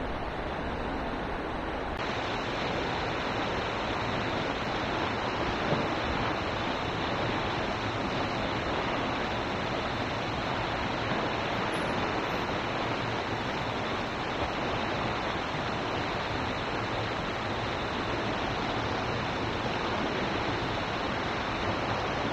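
Steady rushing of flowing river water, an even hiss with no break.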